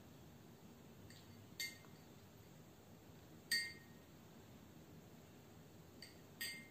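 A spoon stirring in a bowl of water, clinking against the bowl five times with short ringing clinks: two about a second in, the loudest around three and a half seconds, and two more near the end.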